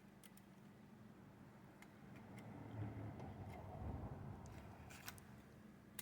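Faint light clicks, then from about two seconds in a low scraping and rubbing lasting a few seconds as the metal tabs holding the tin toy drum together are worked straight.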